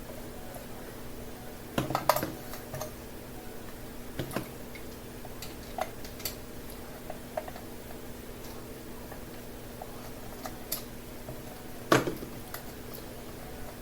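Scattered light clicks and knocks of small hard objects being handled, the loudest about two seconds in and near the end, over a steady low hum.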